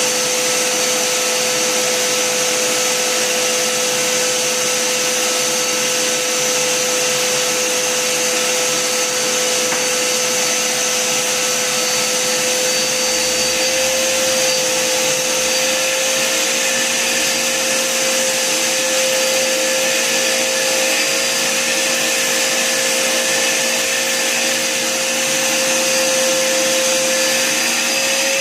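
Vacuum cleaner running continuously: a steady motor whine over a rush of air.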